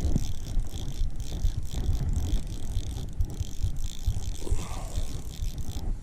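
Fishing reel being cranked with a fine, steady clicking whir as a hooked fish is reeled in. A low rumble of wind buffets the microphone underneath.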